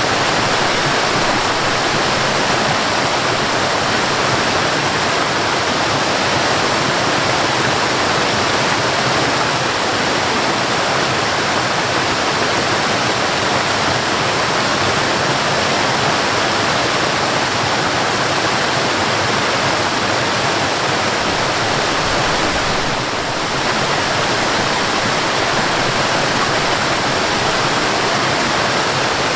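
Waterfall: a steady, loud rush of falling water with no pauses, dipping slightly for a moment about three-quarters of the way through.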